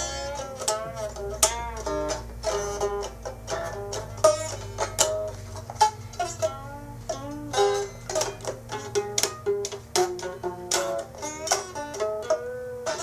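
Music: a plucked string instrument playing a fast run of quick, sharply picked notes over a steady low tone.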